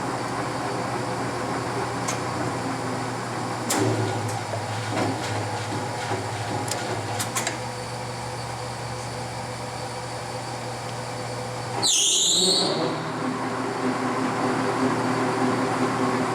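LeBlond Regal Servo-Shift lathe's geared headstock running steadily, with a few clicks about four seconds in. About twelve seconds in, the servo-shift changes spindle speed: a brief loud burst with swooping high-pitched tones, after which the headstock runs on with a different tone, at 362 rpm.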